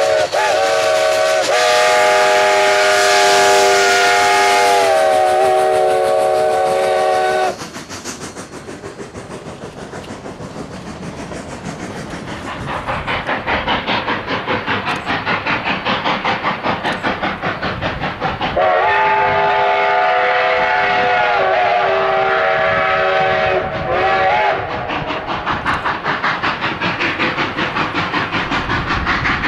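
Steam locomotive's chime whistle blowing a long, several-note blast, then the engine's rapid, even exhaust chuffing as it works. The whistle sounds a second long blast later on, and the chuffing carries on after it.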